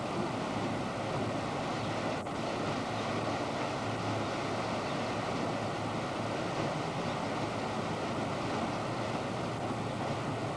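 Steady rush of water from several fountain spouts pouring and splashing into a shallow pool.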